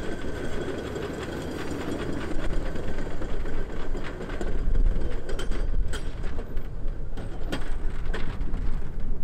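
Hi-rail pickup truck rolling along the rails: its engine running and its tyres and steel guide wheels on the track, as a low rumble that grows stronger about halfway through. A few sharp clicks come in the second half.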